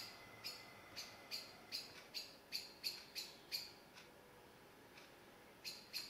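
Spotted flycatcher giving a run of short, sharp calls, about three a second. The calls stop about three and a half seconds in and start again near the end.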